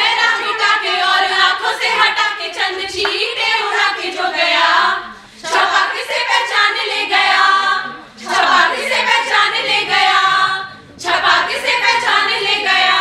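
A group of women's voices singing together in unison without instruments, in four phrases with short breaks between them.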